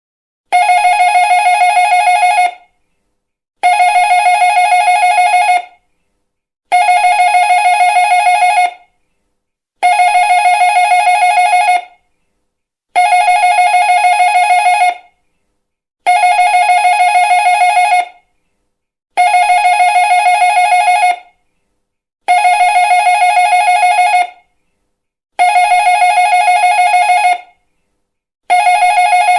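Doorbell ringing over and over, with each two-second ring a rapid trill. It rings about once every three seconds, ten times in a row, with short silent gaps between the rings.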